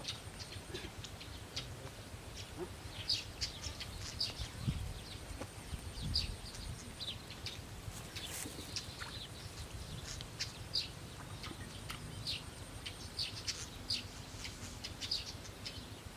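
Birds chirping in short, scattered high calls over a low, steady rumble.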